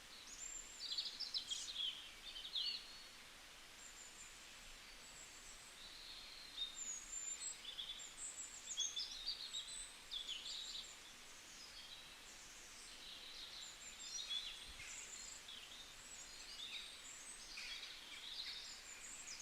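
Several small birds chirping and twittering in quick high flurries that come and go, over a faint outdoor hiss.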